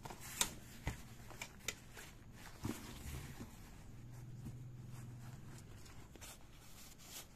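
A fabric waist bag being handled: a few sharp clicks and light rustling in the first couple of seconds, then a soft thud as the bag is laid down.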